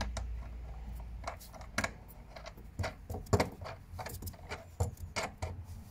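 Irregular small metallic clicks and taps as a wing nut is spun onto a bolt by hand through the floor of a metal case, with one sharper knock about a third of the way through.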